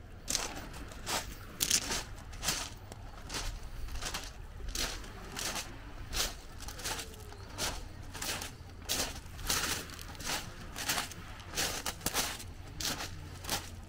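Footsteps crunching on beach pebbles at a steady walking pace, about one and a half steps a second, over a low steady rumble.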